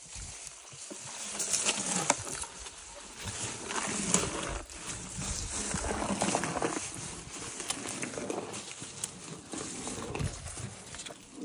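An African bull elephant feeding on bana grass: grass stalks rustling and crackling as the trunk pulls them up, with chewing, in uneven bursts.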